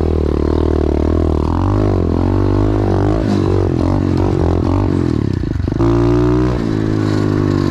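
SSR 125 pit bike's single-cylinder four-stroke engine revving up and down as it is ridden through whoops, its pitch rising and falling with each throttle blip. About five and a half seconds in the revs drop briefly, then pick up again.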